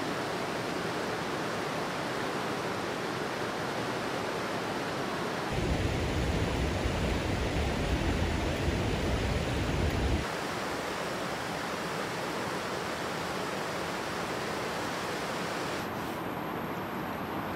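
Steady rushing of river water over rapids and a weir. About six seconds in, a heavier, deeper rumble comes in for some four seconds, then the even rushing returns.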